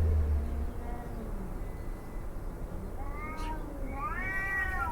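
A cat howling in long, wavering yowls: a faint call first, then two louder calls about three and four seconds in, the last the strongest.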